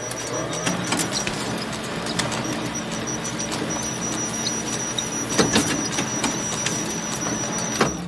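Photocopier running through a copy cycle: a steady mechanical whir with a thin high whine and a low hum, dotted with clicks, and a louder clacking about five and a half seconds in.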